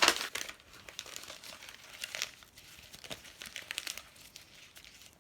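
A sheet of paper being scrunched up by hand, crackling loudest at the start and then in smaller crinkling bursts that die away near the end.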